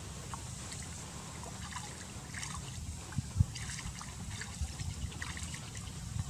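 Shallow muddy pond water splashing and trickling as a man wades through it and reaches in to pick snails, with scattered small splashes over a steady low rumble and one dull thump about halfway through.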